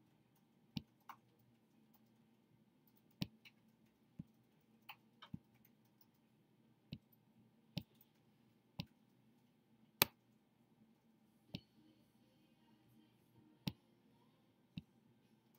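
Computer mouse clicking: about fifteen single, sharp clicks at irregular intervals, a few coming in quick pairs, as interface options are selected.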